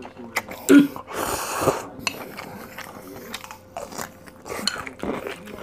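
Close-up mukbang eating sounds: ramyeon noodles slurped into the mouth, then crunchy bites and wet chewing, in a run of short clicks and smacks. A brief hum comes just under a second in.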